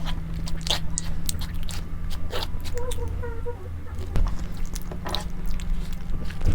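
Close-up eating sounds: chewing with scattered crisp crunches, the loudest just under a second in, at about two and a half seconds and at about five seconds, over a steady low hum.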